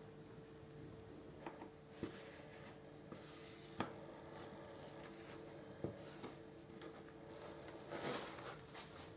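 Silicone spatula scraping thick cake batter out of a plastic mixing bowl into a baking tin: faint, with a few soft taps and a brief louder scrape about eight seconds in, over a steady faint hum.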